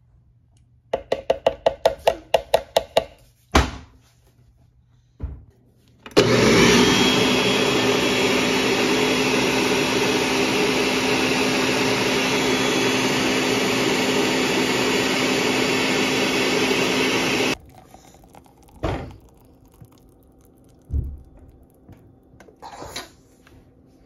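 Countertop blender blending fruit and water into a smoothie: it starts about six seconds in, runs steadily for about eleven seconds, then cuts off suddenly. Before it there is a quick run of about a dozen short pulses and a couple of thumps; after it come a few light knocks.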